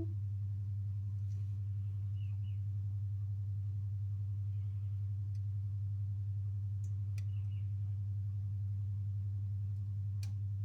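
A steady low hum that does not change, with faint short high chirps in pairs about two seconds in and again about seven seconds in.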